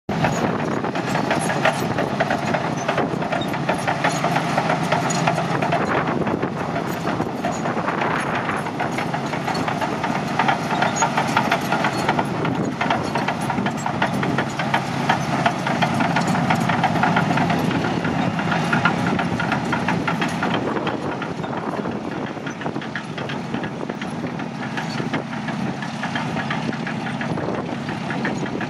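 Caterpillar D9N crawler bulldozer running, its large diesel engine running steadily with a dense, continuous metallic clatter from the steel tracks. The sound eases slightly after about twenty seconds.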